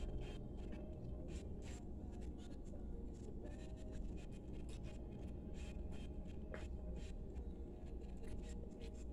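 Close-up eating noises: scattered light clicks and scratchy sounds from chewing and fingers handling food on a plate, over a steady low hum.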